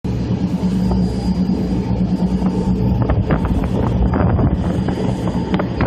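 Boat engine running steadily under way, a low even hum over rushing water. Wind crackles on the microphone from about halfway.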